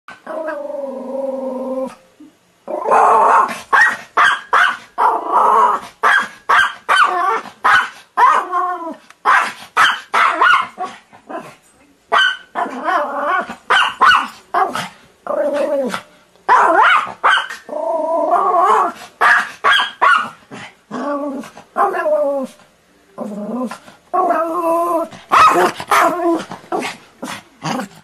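German Spitz (Pomeranian) barking in quick strings of sharp barks, several a second, broken by short pauses. It opens with one drawn-out, steady-pitched call of about two seconds.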